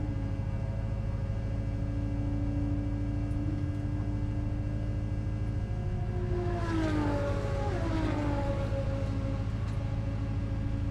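C5 Corvette's V8 running at a steady low drone, with another engine passing about six seconds in, its pitch falling as it goes by.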